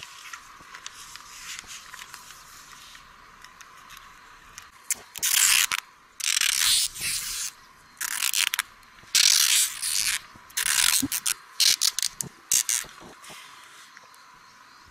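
Adhesive tape pulled off the roll in a run of about eight loud, rasping rips, starting about five seconds in, as a paper poster is taped to a pole.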